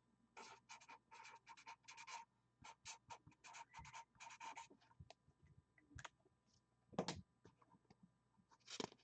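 Faint handling noise: a quick run of short scratchy strokes for several seconds, then a single knock about seven seconds in.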